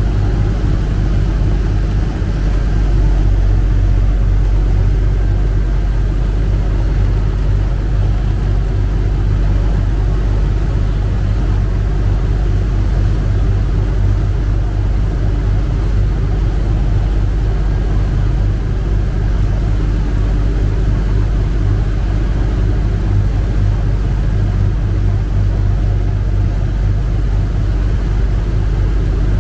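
Chao Phraya Express boat's diesel engine running steadily underway: a loud, even low drone with a hum, mixed with the rush of water and wind.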